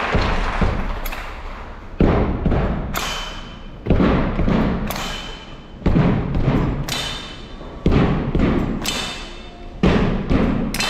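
Slow, heavy stage percussion: a deep hit about every two seconds with a lighter strike halfway between, each hit dying away slowly in a large hall.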